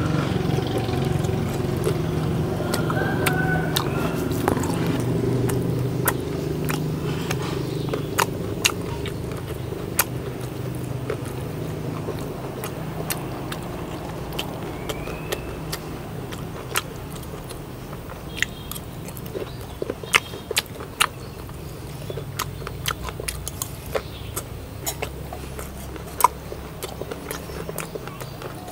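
Eating sounds: scattered sharp crunches and clicks of someone chewing fried chicken tails, over a low steady motor rumble that fades through the first half and picks up again in the second half.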